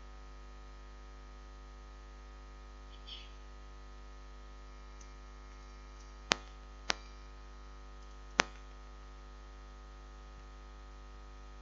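Steady electrical mains hum from a public-address system, broken by three sharp clicks: two about half a second apart, six seconds in, and a third about a second and a half later.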